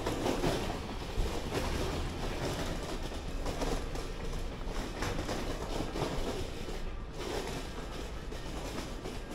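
Wind buffeting the camera's microphone as a steady, low rushing rumble during a walk along stone-paved passages.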